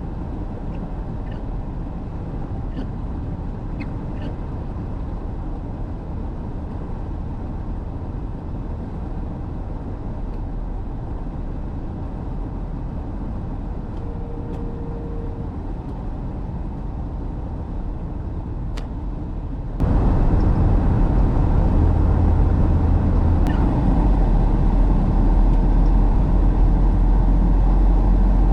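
Car on the move: a steady low engine and road rumble that turns suddenly louder about two-thirds of the way through.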